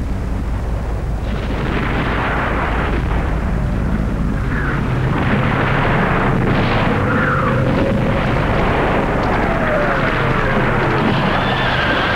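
Battle soundtrack: a dense, continuous rumble of explosions and artillery fire, with several falling whistles over it.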